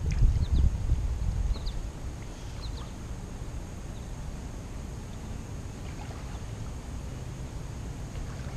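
Pool water lapping against a camera sitting at the surface of a swimming pool, a heavy low rumble for the first second or two, then a steady low wash.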